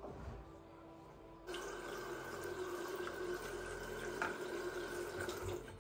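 Bathroom tap running steadily into a sink, turned on about a second and a half in and shut off near the end, with a short click partway through.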